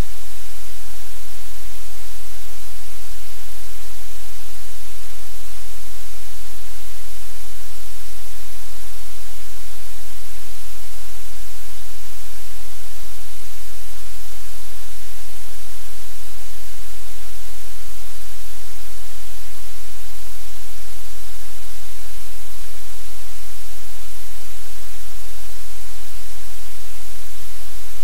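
Steady, loud hiss like static, with a low hum underneath and no change throughout.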